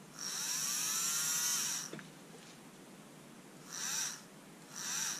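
Small brushed DC motor from a Panasonic EY503 cordless screwdriver run from a bench power supply with its leads swapped: a high whine that rises as it spins up, runs for about a second and a half, and falls as it winds down, then two short bursts about a second apart. It starts straight away each time.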